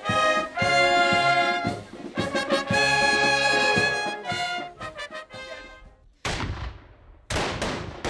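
Brass band playing, fading out after about four and a half seconds. Near the end come two black-powder gunshots about a second apart, each trailing off slowly.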